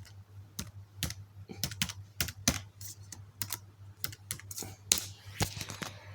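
Typing on a laptop keyboard: irregular key clicks, a few a second, entering a Wi-Fi password, over a low steady hum.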